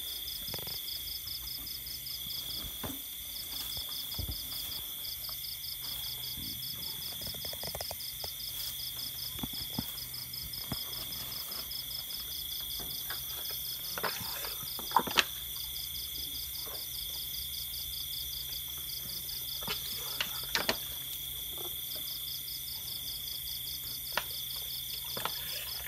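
Night insect chorus: a steady high trill with a faster, rapidly pulsing chirp above it, going on without a break. A few sharp knocks cut through it, the loudest two in quick succession about fifteen seconds in.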